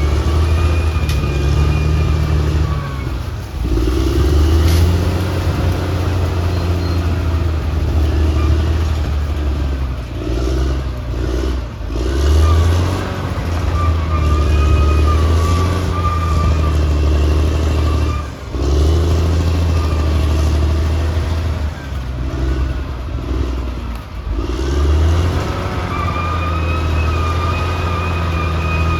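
Caterpillar D6R XL bulldozer's diesel engine running steadily, with a high whine riding over it. The sound dips briefly about four times and picks up again.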